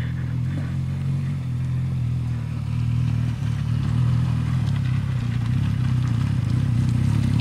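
BMW R1200GS Adventure's boxer-twin engine running steadily as the bike rides over loose rock, getting a little louder about halfway through.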